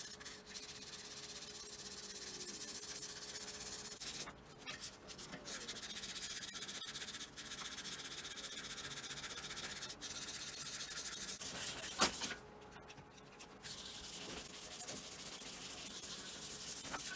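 800-grit waterproof sandpaper rubbed by hand over the painted steel fuel tank, a steady scrubbing hiss. It is flatting the paint runs and keying the ivory paint for the next coats. The rubbing breaks off briefly about four seconds in, and again for about a second and a half after a sharp tap near twelve seconds.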